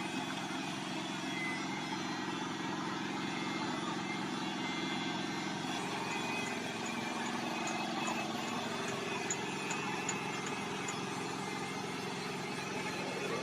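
A steady engine running, with a row of faint high ticks in the middle.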